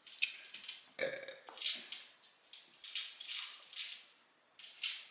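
Pet turtles moving about in their tank, making irregular scratchy clicks and scrapes, with one brief lower sound about a second in.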